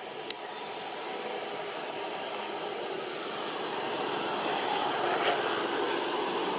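Steady background noise with a faint hum, slowly growing louder, and one sharp click about a third of a second in.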